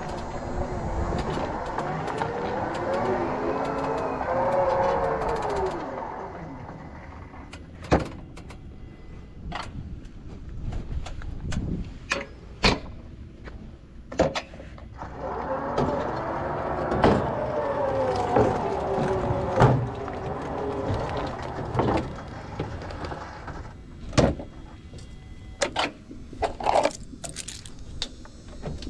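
Battery-powered stand-on mower's electric drive motors whining, the pitch sliding up and down as it speeds up, slows and turns, in two spells. Sharp knocks and clanks come in between and through the last part as it rolls up the ramp onto the trailer.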